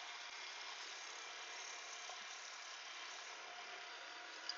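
Faint steady hum and hiss with no distinct events.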